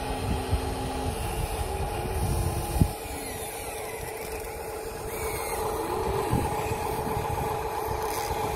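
Radio-controlled Huina excavator and dump trucks working in mud: a steady whine of small electric motors and gears, with low rumbling in the first few seconds and a sharp knock about three seconds in.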